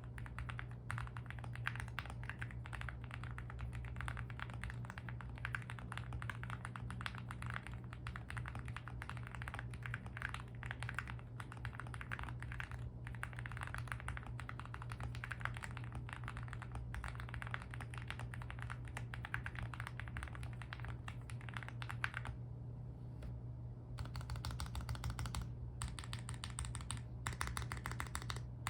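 Mechanical keyboard being typed on fast and continuously: a Meletrix Zoom75 with lubed Everglide Aquaking switches, GMK Tuzi keycaps and foam mods, giving a deep 'creamy thock'. After a short lull about 22 seconds in, the keystrokes change to single presses of the larger stabilized keys.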